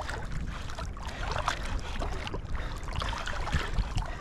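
Shallow seawater sloshing and splashing in irregular small bursts, with wind rumbling on the microphone.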